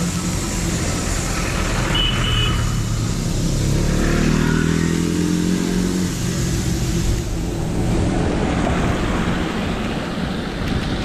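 Road traffic: a motor vehicle's engine passes close by over a steady rumble of traffic, with a brief high beep about two seconds in.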